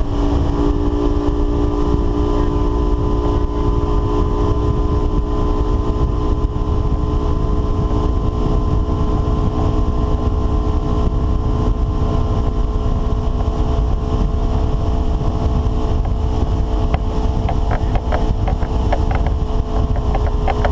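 Motorboat engine running steadily at cruising speed as the hull planes, with wind buffeting the microphone and the rush of spray.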